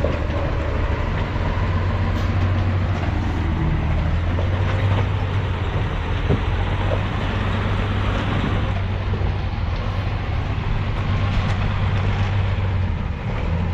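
1986 Toyota Pickup's engine running steadily at low speed while the truck crawls off-road, with a few faint knocks over the drone.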